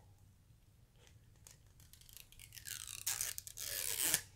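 Teeth gripping and pulling at the plastic seal of a slim brow pencil to get it open: a few faint ticks, then from about halfway a louder scraping noise that lasts about a second and a half.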